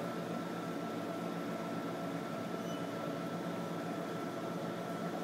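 Steady mechanical hum and hiss with a faint, constant high whine, unchanging throughout.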